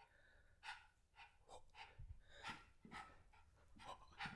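A small dog panting faintly in short, uneven breaths.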